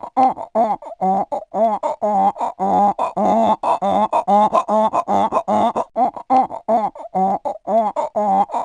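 Seal barking: a long, rapid run of short honking barks, about three a second.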